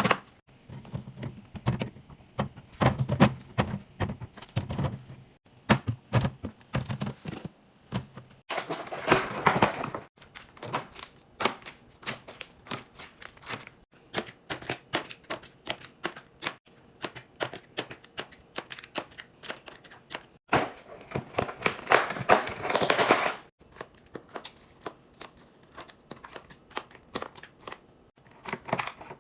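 Rapid clicks, taps and knocks of food-storage containers and lids being handled and set down. There are dull thumps in the first few seconds and two longer noisy stretches of a second or three, about nine and twenty-two seconds in.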